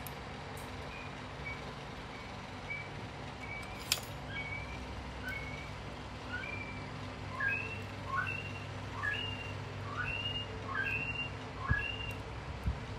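A bird chirping repeatedly, a short high note about once a second. In the second half the notes turn into two-part calls with a lower falling note. There is a steady low hum underneath, a sharp click about four seconds in and a couple of light knocks near the end.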